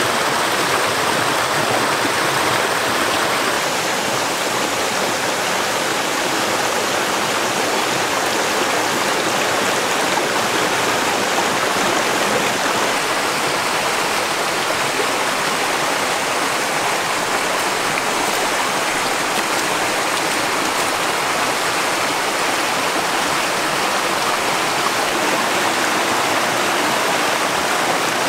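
Steady rushing of flowing stream water, even and unbroken throughout.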